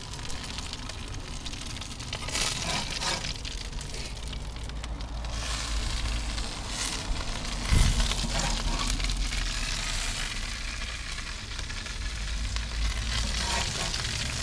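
Bacon-wrapped burgers sizzling on the grate of a Big Green Egg kamado grill, with a metal spatula scraping under them as they are lifted off. A dull thump about eight seconds in is the loudest moment.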